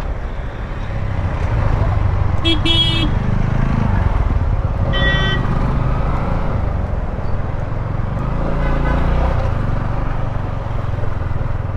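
Motorcycle engine running at low speed, with road and wind noise, as it edges through slow traffic. Two short vehicle horn toots sound, one about two and a half seconds in and one about five seconds in.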